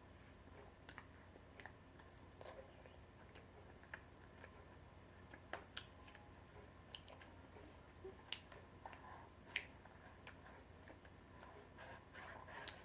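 Faint chewing of tteokbokki rice cakes, with scattered soft mouth clicks and small taps at irregular intervals.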